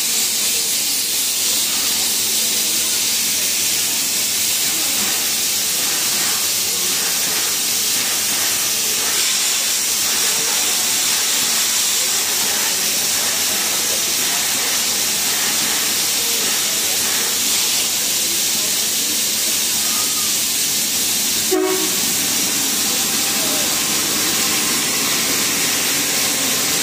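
Steady hiss of steam escaping from NSW 4-6-2 steam locomotive 3801 standing at the platform. A single sharp knock sounds late on.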